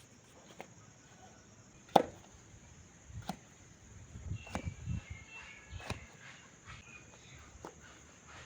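Knife chopping on a cutting board: six sharp, single strokes spaced a second or more apart, the one about two seconds in the loudest.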